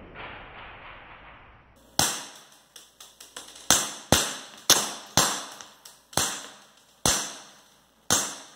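Taurus PT 24/7 G2 CO2 gas blowback airsoft pistol firing eight shots, starting about two seconds in. Each is a sharp crack with a short fading echo, spaced about half a second to a second apart.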